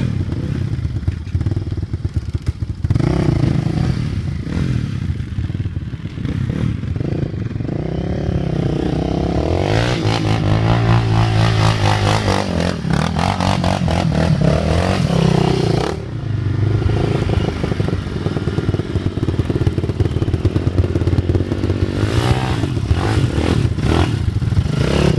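Sport ATV (quad) engines running and revving close by, their pitch rising and falling with the throttle as the quads climb and ride over dirt mounds.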